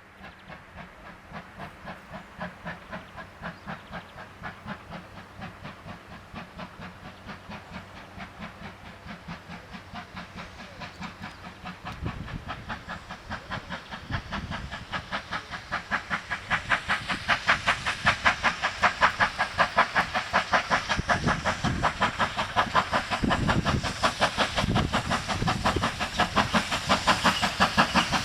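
Steam locomotive working hard, its exhaust beating in a quick, even rhythm with steam hiss, growing steadily louder as it approaches.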